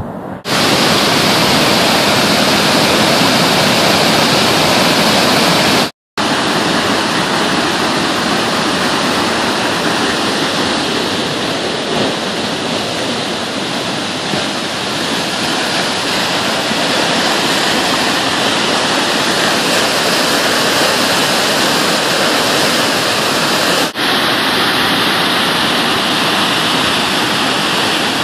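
Creek in flood: muddy whitewater rushing through rapids, loud and steady. It breaks off for a moment about six seconds in and dips briefly near the end.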